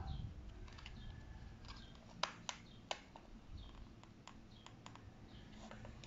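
Small plastic clicks and ticks from a car side-mirror housing being pried apart by hand, with three sharper snaps in quick succession a little after two seconds in.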